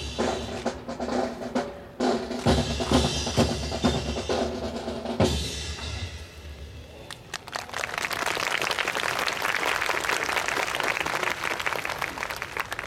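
Marching snare and bass drums playing a rhythmic cadence, stopping about halfway through; a couple of seconds later an audience breaks into steady applause lasting about five seconds.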